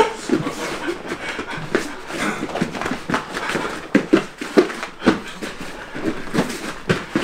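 Bare feet thudding and scuffing irregularly on a foam mat as two fighters move and kick in sparring, with a few louder thuds scattered through.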